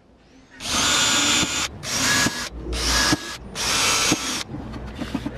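Cordless drill boring pilot holes for the speaker's mounting screws into a wooden subwoofer box, in four short bursts, each stopping sharply, the first the longest.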